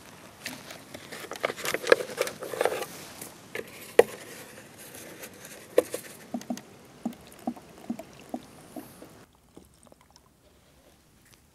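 Dry straw stubble crackling and rustling as it is handled around a ground trap, then a run of light, evenly spaced clicks, about two a second, while a plastic jerrican is handled. The sound drops away almost completely near the end.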